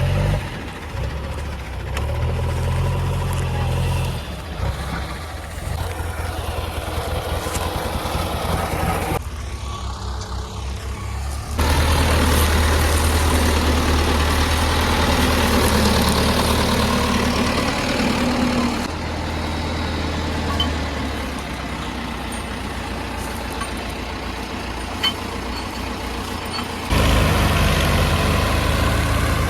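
JCB 3DX backhoe loader's diesel engine running steadily. Its sound changes abruptly a few times, dropping away for a couple of seconds about a third of the way in and coming back louder twice.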